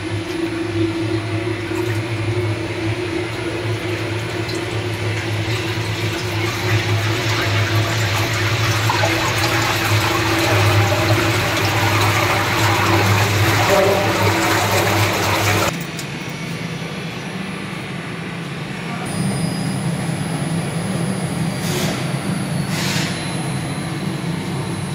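A 15 kW basket mill running in a tank of liquid: a steady motor hum under the churning, splashing rush of the stirred liquid, which grows louder. About two-thirds of the way through it cuts off suddenly to a quieter, steadier machine hum.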